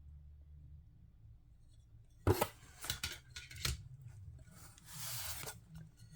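Stained glass sheets being taken out of their packaging: three sharp knocks and clicks from about two seconds in, then a brief rubbing rustle.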